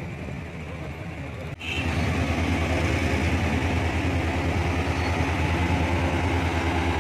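Fire engine's engine idling close by: a steady, evenly pulsing low rumble that starts abruptly about a second and a half in, after a quieter stretch of street noise.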